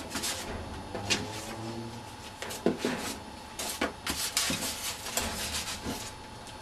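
Cardboard box and paper packaging being handled: rustling with scattered knocks and clicks.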